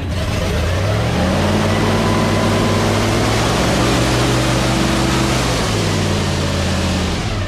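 Tour bus engine pulling away. Its note rises about a second in, holds steady, then falls away near the end, over a steady rushing noise.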